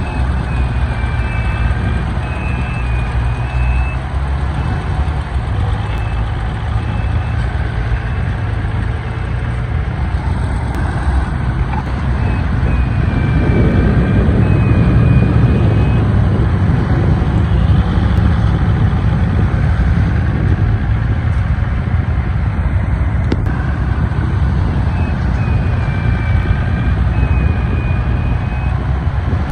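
Heavy diesel engines of a dump truck and bulldozer running, with a reversing alarm beeping in three spells: near the start, about halfway through and near the end. About halfway through the engine noise rises and stays louder, as a machine works harder.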